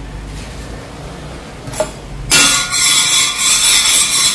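A metal scraper starts rasping across an oiled steel flat-top griddle a little over two seconds in, a rough continuous scraping of metal on metal, after a single light click.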